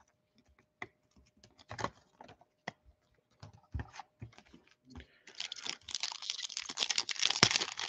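Scattered light clicks and taps of trading cards and packs being handled, then from about five seconds in a dense crackling crinkle of a foil trading-card pack wrapper being opened.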